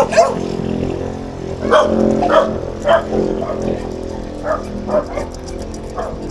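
A dog barking repeatedly in short, sharp barks, louder in the first three seconds and softer later, over a steady low motor hum.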